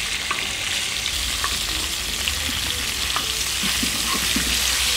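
Chunks of beef and pork searing in hot fat in a steel plow-disc pan (disco) over a wood fire: a steady sizzle as the meat browns. A wooden spoon stirs the pieces around the pan, and short light clicks come and go.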